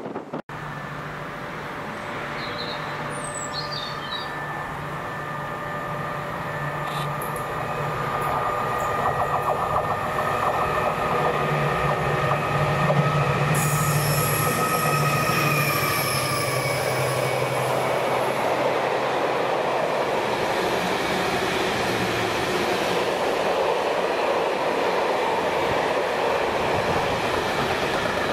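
Class 70 diesel locomotive hauling a train of autoballaster hopper wagons, approaching and passing. The engine's drone, with a high steady whine over it, grows louder through the first half and then fades, leaving the steady rumble of the wagons' wheels on the rails.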